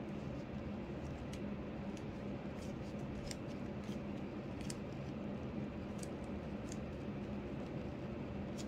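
Clear plastic pocket pages of a comb-bound cash-envelope book being handled and leafed through: faint, light crinkles and clicks every second or so over a steady background hum.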